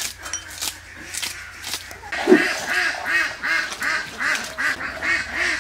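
Duck quacking in a rapid, even series, about three quacks a second, starting about two seconds in; before that, a few sharp knocks.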